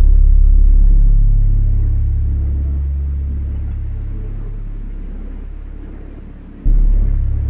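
Ambient soundtrack of deep, low bass notes. One comes in suddenly and fades slowly over several seconds, and another sounds near the end.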